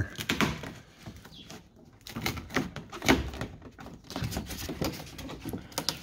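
Plastic door dust shield crinkling and crackling in irregular bursts as it is pulled back by hand from the inner door skin.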